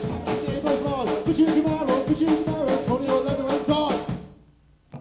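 Live rock band playing fast, with busy drums under a sung melody, then stopping abruptly a little after four seconds in; a few faint plucked notes follow.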